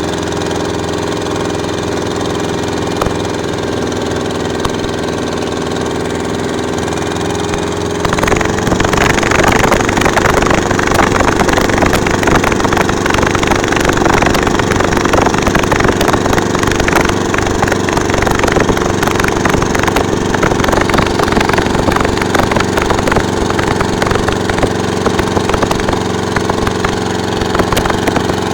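Small engine running steadily, then at about eight seconds in it gets louder and rougher with a crackling rattle, and runs on that way.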